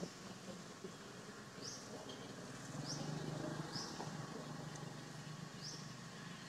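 Outdoor ambience: short, high rising chirps about once a second, four in all, over a faint low steady hum.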